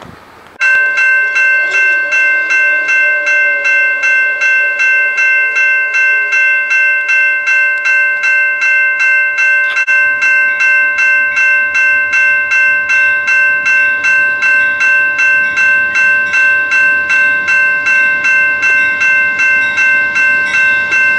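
Railroad grade-crossing warning bell ringing, starting about half a second in and repeating rapidly and steadily at about three dings a second: the crossing has been activated by an approaching train.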